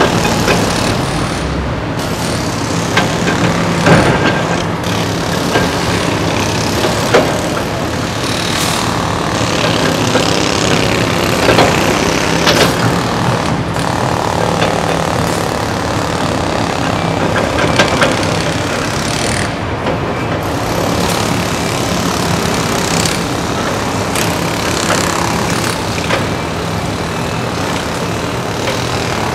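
Kobelco SK350 excavator's diesel engine running steadily under load as it digs, with occasional metallic clanks.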